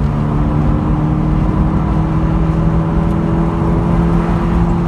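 Car engine heard from inside the cabin, pulling steadily with its note rising slowly as the car gathers speed, over continuous road and tyre noise.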